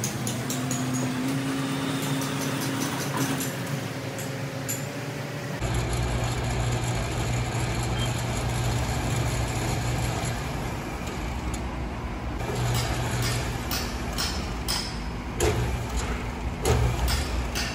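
Belt-driven coil winding machine running with a steady motor hum as it spins a stepped former, winding copper wire into a three-phase motor's coils. Sharp clicks come in over the last few seconds.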